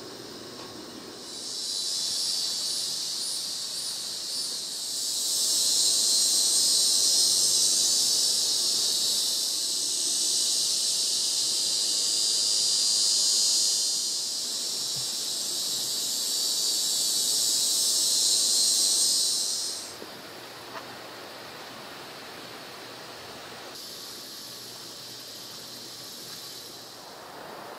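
Cicadas buzzing: a loud, high-pitched drone that starts about a second in, pulses softly at first, then holds steady and cuts off sharply about twenty seconds in; a fainter buzz returns near the end.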